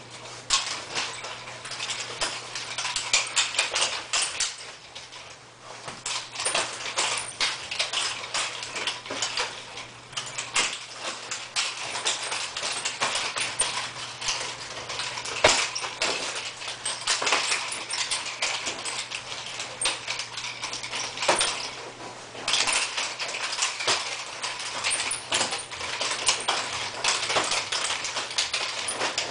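Freshly cleaned and re-lubricated ball-bearing swivel nunchaku being spun in freestyle: the metal chain rattles and jingles without a break, with sharper knocks here and there.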